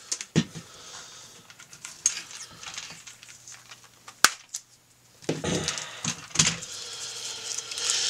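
Small plastic and metal parts being handled on a workbench: a binder clip taken off a circuit-board control panel and set down, with a few sharp clicks. From about five seconds in there is a louder stretch of scraping and rustling as the panel is moved and laid on the bench.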